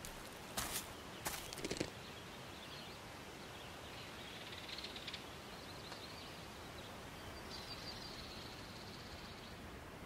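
Outdoor ambience: a steady low hiss with faint bird chirps coming and going. A couple of short scuffing sounds fall within the first two seconds.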